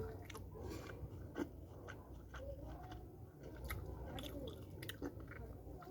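A person biting and chewing lumps of multani mitti (fuller's earth clay), with irregular crisp crunches.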